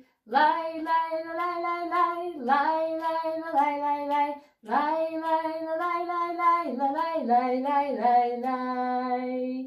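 Singing of a children's song about the weather: two long melodic phrases with held notes, broken by a short pause about four and a half seconds in.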